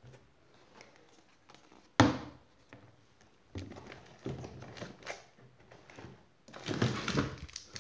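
Hands rummaging through a cardboard box of bottled toiletries. There is a sharp knock about two seconds in, then light clattering and rustling as bottles and their wrapping are shifted, busiest near the end.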